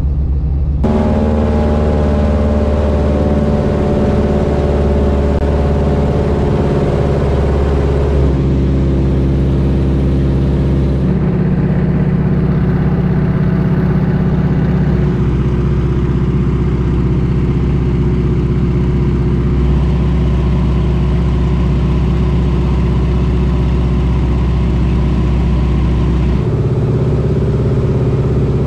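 Float plane's piston engine and propeller droning steadily, heard from inside the cabin. The pitch of the drone shifts a few times as the power changes.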